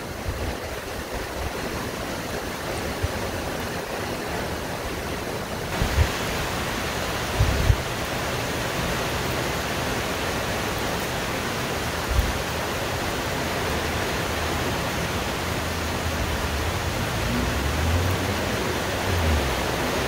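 Heavy rain falling on forest leaves, a dense steady hiss. Occasional low thumps of wind buffeting the microphone, more of them near the end.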